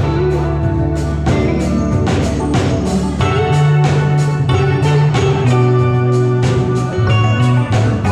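A live band playing in a hall, guitar over a steady drum beat.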